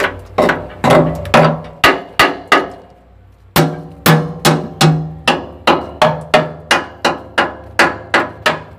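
Hammer blows on the steel chassis rail of a Hino 500 dump truck, about three a second, each a sharp clang with a short metallic ring. The blows stop for just under a second near the middle, then resume at the same pace.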